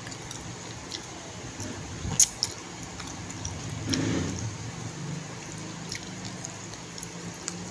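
Close-up eating sounds: chewing, lip smacking and finger licking while eating chicken by hand, with scattered small clicks, the sharpest about two seconds in, over a steady low hum.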